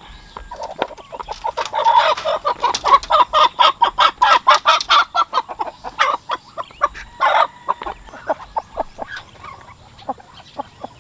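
Chicken clucking in alarm as it is caught and held by hand: a fast, loud run of short clucks that thins out after about six seconds, with one longer squawk a little after seven seconds.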